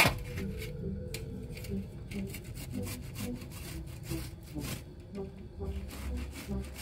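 Kiwi fruit being rubbed back and forth on a flat stainless-steel hand grater: a run of short, repeated rasping strokes, with a sharp knock right at the start.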